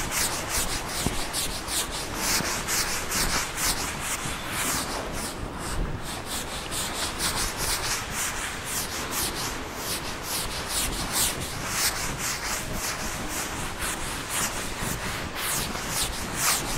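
Handwriting: a continuous run of short scratching pen or chalk strokes, about two to three a second, with a brief pause about six seconds in.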